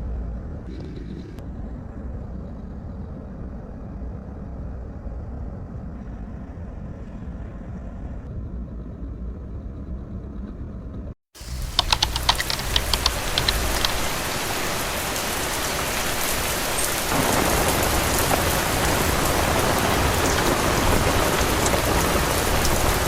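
Steady rain: for the first eleven seconds a dull, muffled low rush, then after a sudden cut heavy rain hissing loudly, with a quick run of sharp drip ticks at first and growing a little heavier later on.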